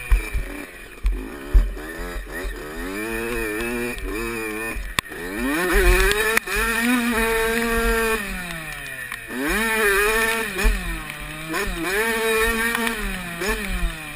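Dirt bike engine ridden hard, its revs climbing and dropping again and again through the gears, with a long climb in pitch about five seconds in. A couple of sharp knocks come from bumps in the track.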